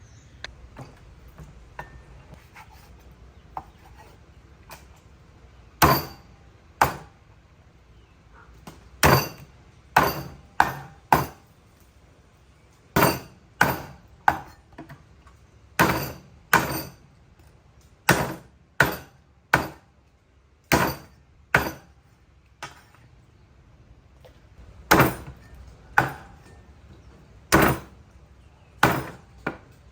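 Repeated heavy chopping strokes of a blade striking into wood, irregularly spaced and often in quick pairs, about one a second, starting some six seconds in after a few faint knocks.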